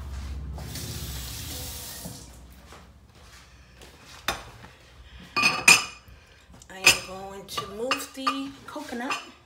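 Kitchen dishes and utensils clinking and clattering, with several sharp ringing knocks from about four seconds in. A short hiss comes near the start.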